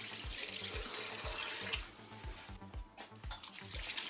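Water poured from a plastic jug into a stainless steel pot over chicken legs, splashing onto the meat, to cover it for poaching. The pouring stops briefly about two and a half seconds in, then starts again.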